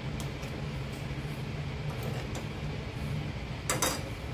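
A steel ladle scraping and clinking against a steel pan and serving bowl as a thick curry is ladled out, with a louder double clink near the end, over a steady low hum.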